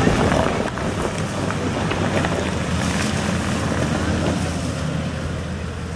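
Toyota Land Cruiser 80-series engine running steadily under load as the 4WD crawls through a deep muddy rut.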